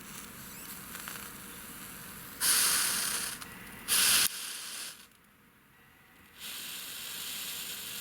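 Hot soldering iron tip hissing and sizzling, with two louder hissing bursts, the first about two and a half seconds in lasting about a second, the second a short one about four seconds in. After a short drop to near quiet, a faint steady hiss carries on.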